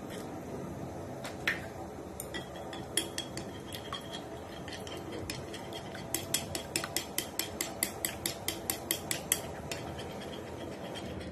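Metal utensil clinking against a bowl, the sound of beating eggs. A few scattered clinks give way, about halfway through, to a quick run of about five taps a second lasting three or four seconds. A steady low background noise runs underneath.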